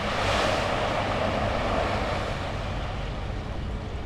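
Water pouring out of the belly tank of a Q400 water bomber onto the tarmac in a partial drop: a heavy rushing gush, loudest in the first second, that eases off as the water spreads.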